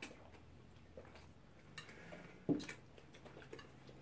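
Spoons and forks clinking and scraping faintly against a glass serving dish of rice, in scattered small clicks with one louder clink about two and a half seconds in.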